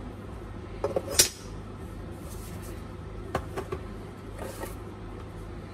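Handling noises on a tabletop: a few sharp knocks and clatters about a second in and again around three and a half seconds, with a brief rustle after, as a steel ruler and a glass aquarium heater with its cord are set down. A steady low hum underneath.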